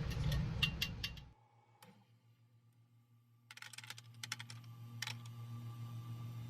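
Scattered light clicks and taps over a low steady hum, with the sound cutting out completely for about two seconds in the middle.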